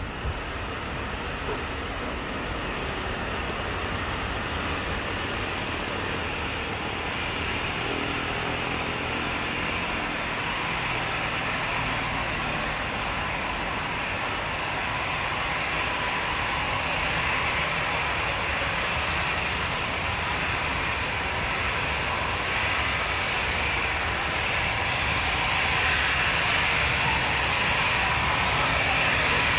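Aircraft engines running steadily and growing slightly louder toward the end, with insects chirping in a steady pulse.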